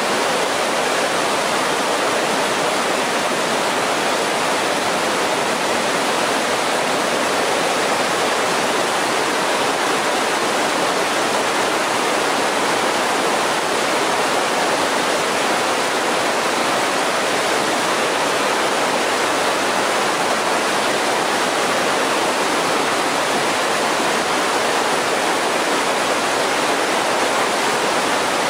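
Mountain creek rushing over a boulder-strewn bed in whitewater rapids: a loud, steady hiss of tumbling water.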